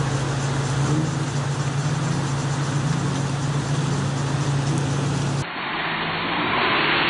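A 4x4's engine running at a steady pitch against the rush of a fast river as the vehicle wades through deep water. About five seconds in, a cut brings a bus engine and a louder hiss of splashing as the bus pushes through muddy water.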